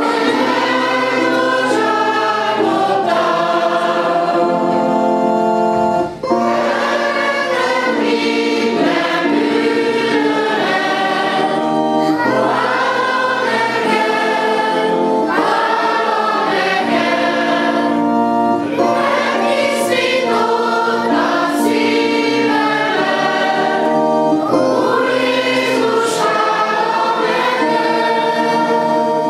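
Church congregation singing a hymn together, with a brief break between phrases about six seconds in.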